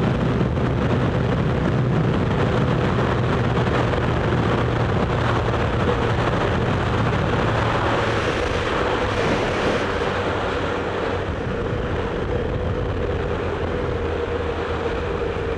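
Motorcycle engine running at a steady cruise under a rush of wind and road noise; the engine note eases a little in the last few seconds.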